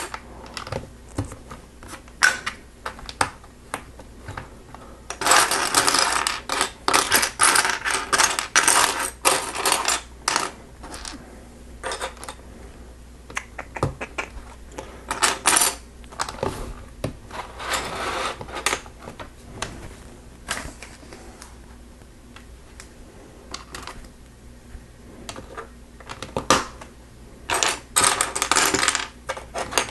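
Small plastic Lego pieces clattering and clicking as hands rummage through loose parts and press bricks together. It comes in spells of rapid clicking, the longest starting about five seconds in, with single clicks between.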